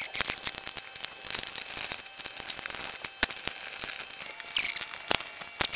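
Hex key turning a small bolt in a wooden drone frame plate: a stream of irregular metal clicks and scrapes with handling noise, a few clicks louder than the rest.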